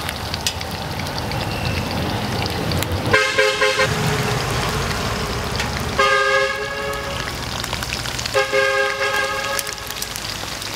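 Oil sizzling steadily as battered pork rib pieces deep-fry in a wok, while a vehicle horn toots three times, each blast about a second long.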